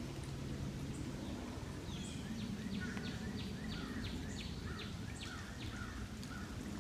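Steady low rush of running water, with a songbird singing a rapid series of repeated notes, about three a second, from about two seconds in.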